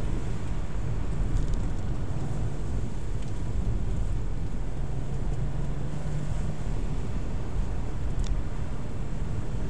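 Car driving, heard from inside the cabin: a steady low rumble of engine and tyre noise, with the engine hum shifting slightly in pitch as the speed changes. A brief click near the end.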